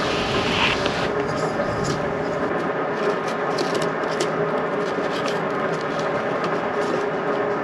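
A steady mechanical hum with hiss, carrying several steady tones, with faint scattered clicks over it.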